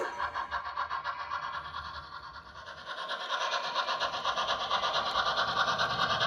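Sound-equipped HO scale model of a CN 2-6-0 steam locomotive running, its speaker giving a steady steam chuff of about four beats a second that fades about two seconds in and comes back louder after the third second.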